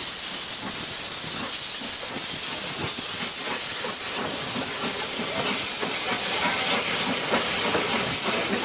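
Beyer Peacock steam locomotive hissing steam steadily.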